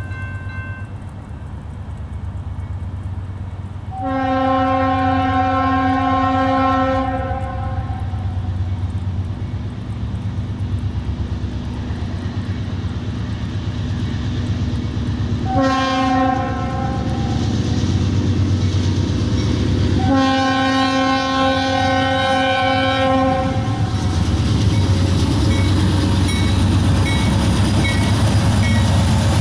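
Norfolk Southern locomotive 4117's air horn sounding as the freight train approaches. There is a long blast about four seconds in, a short one about fifteen seconds in, and another long one about twenty seconds in, in the pattern of a grade-crossing signal. Underneath, the train's rumble grows steadily louder.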